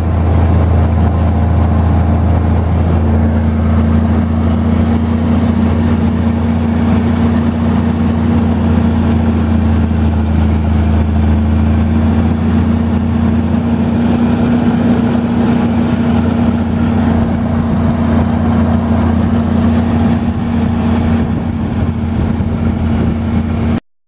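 International tractor engine running steadily while towing a loaded firewood wagon, heard from the operator's seat. It cuts off suddenly near the end.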